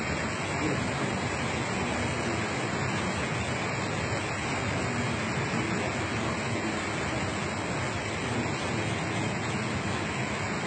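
Water rushing steadily out of a mountainside, an even, unbroken hiss.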